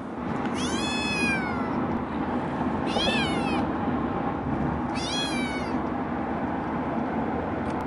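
Calico kitten meowing three times, high-pitched cries that each rise and then fall in pitch, over a steady low car road noise.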